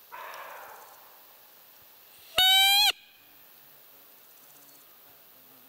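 A roe deer call blown once: a single loud, steady, high squeak about half a second long, about two and a half seconds in, imitating a roe doe to lure a rutting buck. A short burst of noise fades out near the start.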